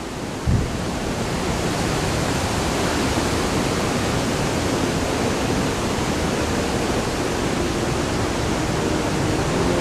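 Steady rushing roar of a waterfall, swelling over the first few seconds and then holding. A brief low thump about half a second in.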